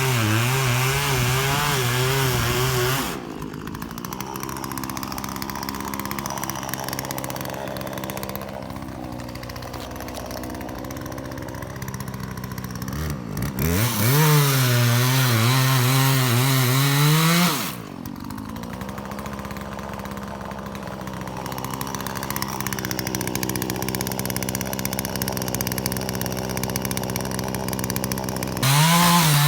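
Chainsaw at full throttle that drops back to idle after about three seconds, revs up again with rising pitch for about four seconds in the middle, idles again, and goes back to full throttle at the very end, while a big pine tree is being felled.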